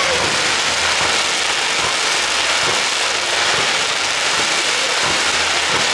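Fireworks giving off a steady crackling hiss that holds at an even level throughout.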